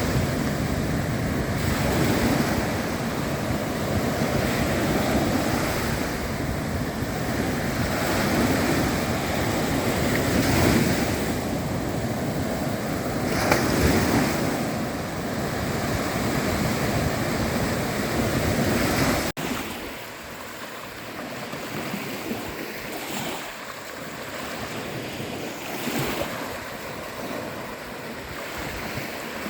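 Sea waves washing and breaking on shore, swelling and easing every few seconds. About two-thirds of the way through, the sound cuts abruptly to a quieter, thinner surf with less low rumble.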